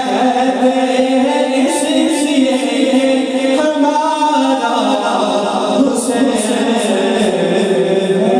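A man singing a devotional Urdu poem (manqabat) unaccompanied into a microphone, with long held notes.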